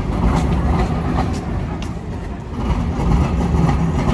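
Trams at a busy junction stop: a steady low rumble with a few light clicks as a tram rolls across the junction.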